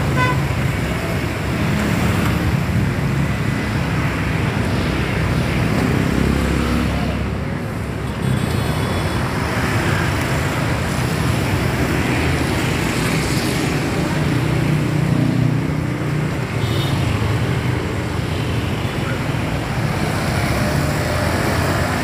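Diesel engine of a large tour coach running as the bus moves off and rolls past close by, with road traffic noise around it.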